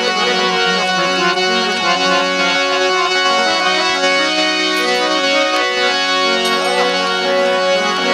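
Harmonium playing an instrumental passage between the sung lines of a santvani bhajan, a melody moving over held notes.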